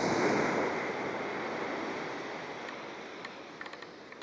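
A sea wave breaking on the shore and washing back, loudest at the start and slowly fading, with a few faint ticks near the end.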